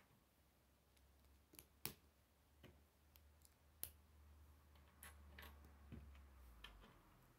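Faint, sharp clicks of plastic K'nex rods and connectors being snapped together and handled, about seven at irregular spacing, the loudest about two and four seconds in.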